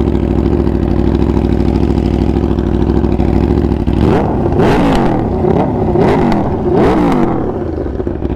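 2014 Aprilia RSV4's V4 engine through a titanium Pro Race full exhaust, idling steadily, then revved in four or five quick throttle blips about four seconds in before settling back to idle.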